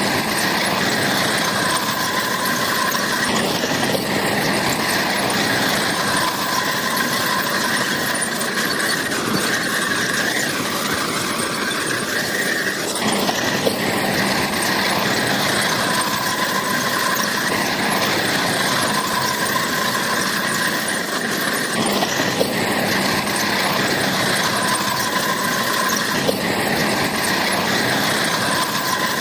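Bulldozer working, its steel crawler tracks squealing steadily as it moves, with high squeal tones that swell and fade every few seconds over the diesel engine's running.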